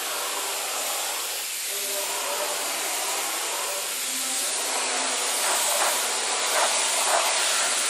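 Gravity-feed paint spray gun hissing steadily as compressed air atomises coating onto a steel bumper reinforcement.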